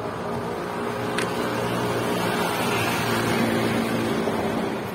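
A motor's steady hum that swells to its loudest about three and a half seconds in and drops off near the end, with a single sharp click a little over a second in.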